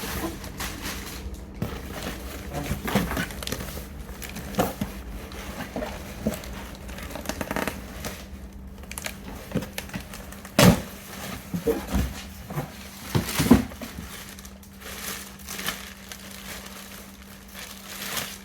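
Packaging crinkling and rustling as a parcel is unwrapped and rummaged through, with a few louder sharp knocks or rips between about ten and fourteen seconds in.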